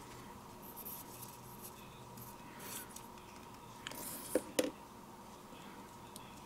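Quiet papercraft handling on a cutting mat: light rustles and scrapes of paper pieces and a plastic glue bottle, with two short light knocks close together about four and a half seconds in.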